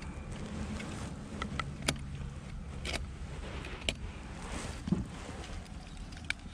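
A steady low rumble with sharp light clicks about once a second, and a few fainter ticks between them.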